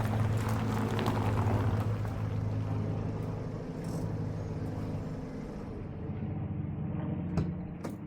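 A steady, low engine hum that slowly fades away, with a couple of sharp clicks near the end.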